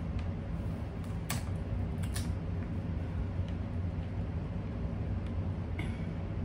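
Crab-leg shells cracking and snapping as they are broken open by hand: a few sharp clicks about a second and two seconds in and again near the end, over a steady low hum.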